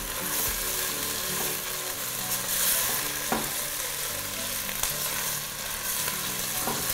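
Chopped garlic and onion sizzling in hot oil in a stainless steel pot, stirred with a silicone spatula, with a steady frying hiss and a couple of faint clicks.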